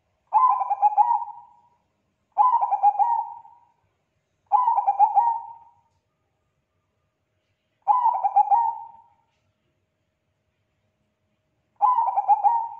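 Zebra dove (perkutut, Bangkok strain) cooing: five rolling, pulsed coo phrases, each about a second and a half long. They come every two to four seconds, and the last begins near the end.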